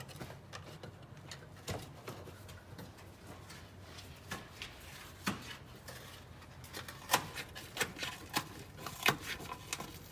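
Scattered light clicks and knocks from hands and tools working inside a motorhome's front compartment, coming faster and louder over the last few seconds, over a faint steady low hum.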